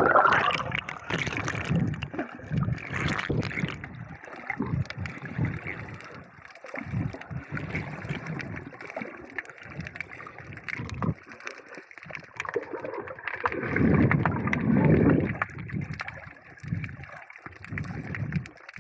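Muffled water noise heard through a camera held underwater by a swimmer: water churning and gurgling with bubbles, rising in irregular surges. There is a louder swell about three-quarters of the way through.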